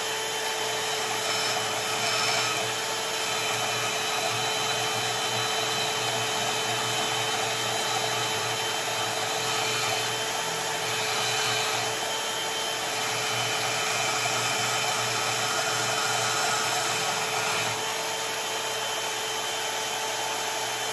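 Small vertical metal-cutting bandsaw running steadily with a constant hum and whine, its blade cutting lengthwise down the middle of a hexagon steel bar.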